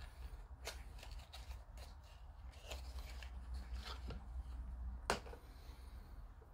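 Faint, scattered light clicks and taps from plastic model-kit parts and tools being handled on a work surface, the sharpest about five seconds in, over a low steady hum.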